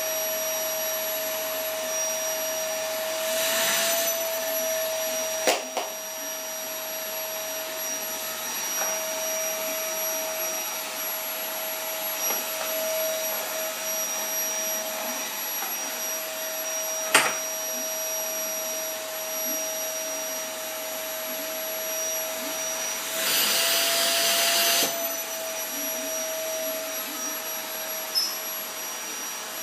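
Vacuum cleaner running with a steady whine over a hiss. About 3 s in and again about 23 s in, the hiss swells and the pitch rises slightly for a second or two, and sharp knocks come at about 5 s and 17 s.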